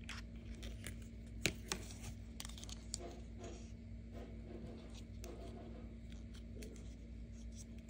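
Hard plastic toy figures handled by hand: a few sharp plastic clicks and taps, the loudest about a second and a half in, and a light rustle of figures shifting against each other, over a steady low hum.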